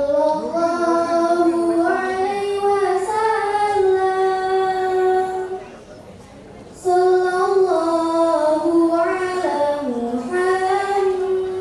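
A girl singing solo through a microphone in long, held notes that step up and down. She sings two phrases with a short break about halfway.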